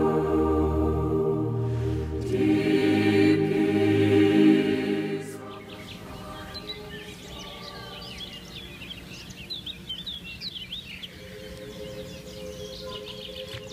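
Choral music with sustained voices, which cuts off suddenly about five seconds in. After it, many songbirds chirp and sing in quick, overlapping high calls.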